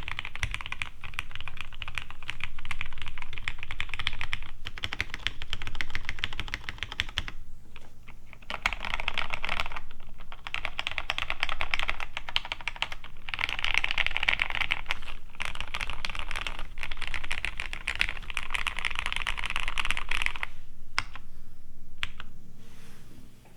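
Fast typing on a Cherry G80-1838HPU mechanical keyboard with lubed Cherry MX Black Hyperglide linear switches, plateless, under GMK keycaps: dense runs of keystrokes with a couple of short breaks, thinning to a few single keystrokes near the end.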